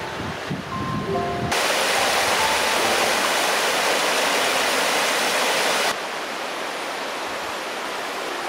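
Shallow snowmelt stream rushing over rocks: a loud, even water noise that starts about a second and a half in and cuts off abruptly around six seconds. Soft background music with short sustained notes plays before it.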